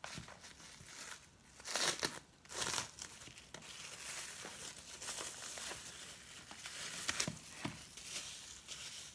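Food packaging being handled and rustled as ordered food is sorted through, with louder rustles about two and two and a half seconds in, then steady rustling.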